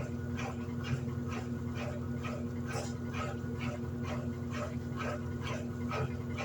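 Electrolux LED14 top-loading washing machine running: a steady motor hum with a short pulsing sound repeating about three times a second.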